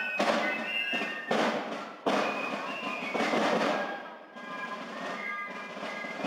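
Marching music from a parade band: drum beats about once or twice a second, with a high wind-instrument melody over them.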